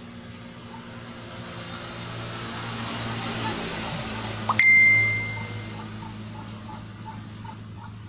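A single sharp metal strike about halfway through, ringing with a clear bell-like tone for about a second, typical of a steel tool or engine part being struck or dropped during work on a motorcycle engine. Under it runs a steady low hum, with a swelling hiss before the strike.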